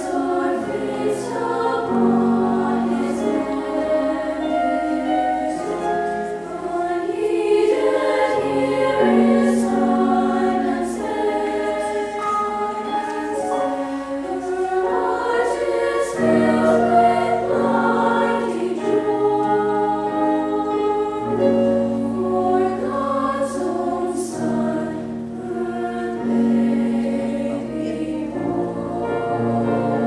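Children's choir singing a choral piece, holding long sustained notes.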